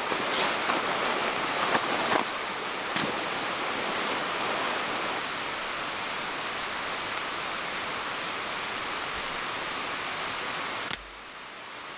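Steady rushing of water, with a few sharp taps in the first three seconds. It drops suddenly in level about a second before the end.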